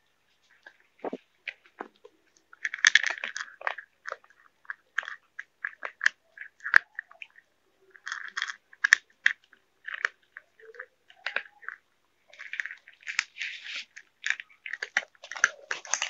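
Cats chewing food from plastic bowls: short clicks in irregular clusters, with brief pauses between mouthfuls.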